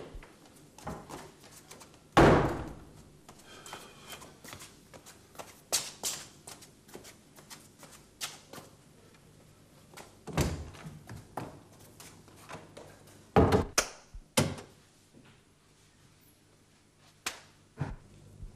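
Scattered thuds and knocks, with a door banging, as someone moves about a room. The loudest knocks come about two seconds in, then near ten seconds and twice around thirteen to fourteen seconds.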